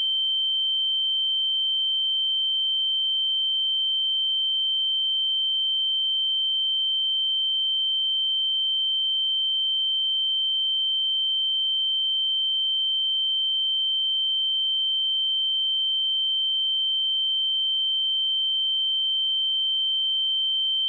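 A steady 3114 Hz sine-wave test tone, a single high pure pitch held at constant loudness.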